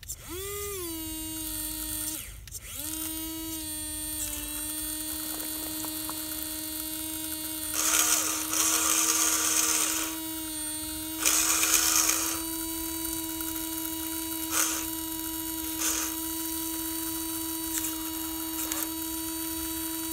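The custom RC fire truck's small electric water pump whines steadily while it sprays water. It spins up with a quick rise in pitch, cuts out briefly about two seconds in, then restarts and runs on. There are two louder spells of hissing spray, around eight and eleven seconds in.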